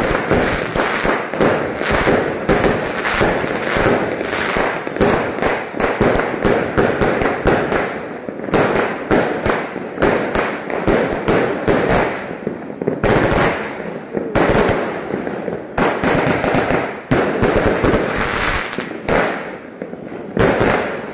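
Aerial fireworks going off in a rapid, near-continuous string of bangs and crackles, with brief lulls about eight, twelve, fifteen and twenty seconds in.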